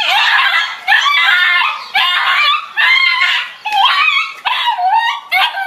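A dog yelping in a string of about seven high, wavering cries, each shorter than a second.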